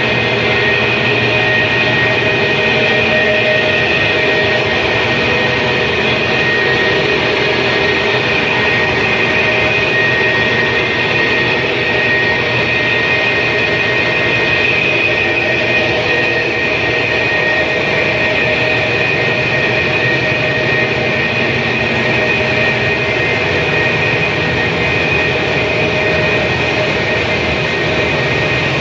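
Tofu cat litter production line machinery running. A loud, steady machine noise with a constant high whine over it.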